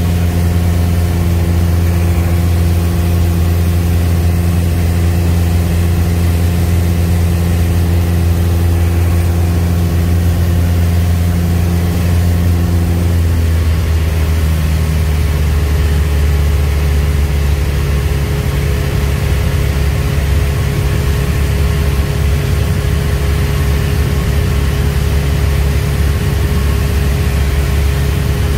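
Piper Cherokee Warrior's four-cylinder Lycoming engine and propeller droning steadily, heard inside the cabin. Its note drops slightly and turns rougher about halfway through.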